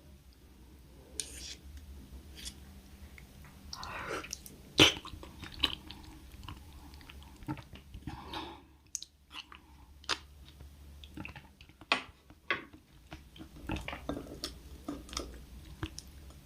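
Close-miked eating sounds: irregular chewing with wet mouth clicks and a few crunches, the sharpest click about five seconds in.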